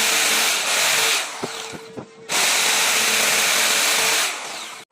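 A power tool working wood in two long runs with a short pause between, a loud hiss with a steady tone underneath, with a few knocks in the pause.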